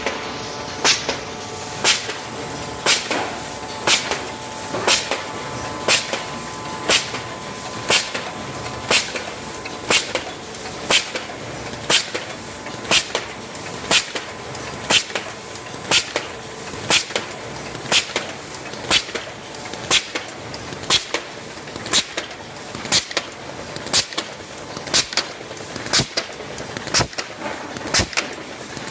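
Folding and gluing machine for paper and card running steadily, with a sharp click or clack about once a second as it cycles, now and then doubled.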